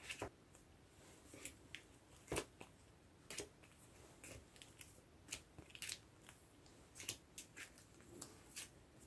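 Sleeved photocards being handled and slid into the plastic pockets of binder pages: faint, irregular rustles and sharp little clicks of plastic, a dozen or so scattered through.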